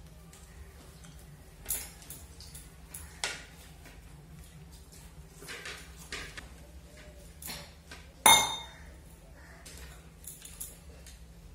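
Scattered light clinks and scrapes of fingers and dishes while rice is eaten by hand from plates, about five in all. A little past the middle comes one louder, briefly ringing clink of a dish.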